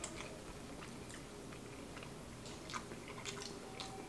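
Faint chewing of soft mac and cheese, with a few scattered light clicks.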